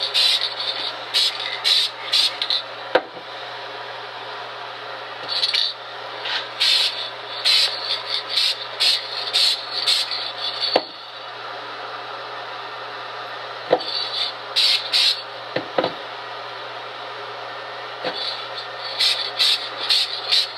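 Dupli-Color aerosol spray-paint can hissing in short repeated bursts as a first coat is sprayed, in clusters of quick passes with pauses between them, over a steady background hum, with a few light clicks.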